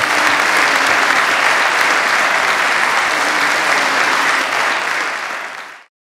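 Audience applauding steadily, then cutting off abruptly near the end.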